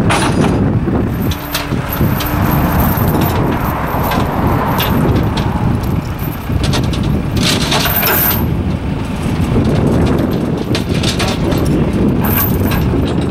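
Case skid steer loader's engine running as it drives up the ramps onto a trailer, with wind rumbling on the microphone.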